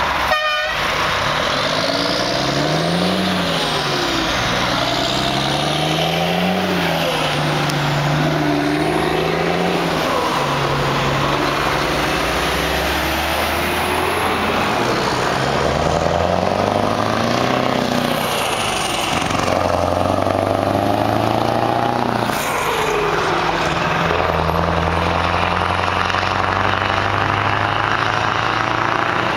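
Heavy V8 trucks with open exhausts roaring as they pull away and pass close by, one after another. Each engine climbs in pitch and drops back several times as it shifts up through the gears.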